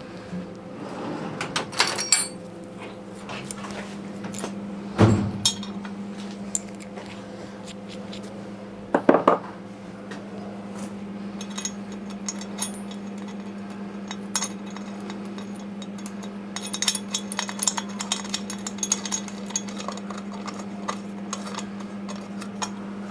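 Metal clinks and knocks as an aluminium engine casing, a washer and a spanner are handled and set on a milling machine's steel table, with two louder knocks about five and nine seconds in and a run of small clicks later. A steady low hum sits underneath.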